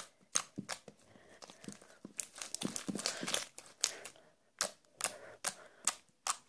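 Hands squishing and kneading a runny, sticky fluffy slime made with glue, nail polish and a little shaving foam, giving irregular wet pops and clicks, a few per second, as the fingers press into it and pull away.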